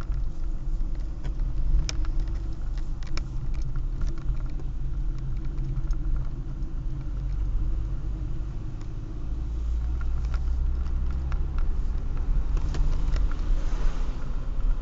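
Car engine and road noise heard from inside the cabin while driving: a steady low rumble with occasional faint clicks and rattles.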